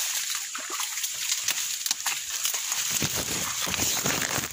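Leaves and branches rustling and crackling as people push through dense undergrowth on foot, with foliage brushing close against the microphone. A heavier low rumble comes in about three seconds in.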